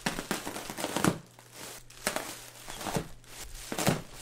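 Clear plastic bubble-wrap packaging crinkling and crackling as a sword is jabbed down into it and crushes it, with irregular sharp crackles, loudest about a second in and again near the end.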